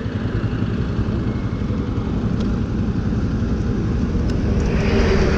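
Motorcycle engine running with a steady, evenly pulsing low rumble; a higher hiss comes in near the end.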